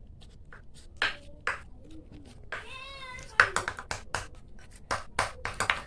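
A wooden masher knocking and clinking against a steel bowl again and again as banana is mashed, the loudest knock about three and a half seconds in. A cat meows once, a single rising-then-falling call, just before the middle.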